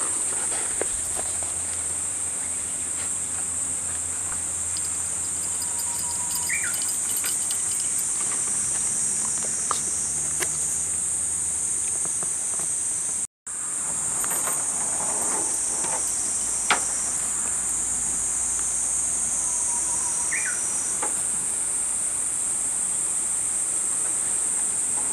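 Steady high-pitched drone of insects in chorus; the sound drops out for an instant about halfway through.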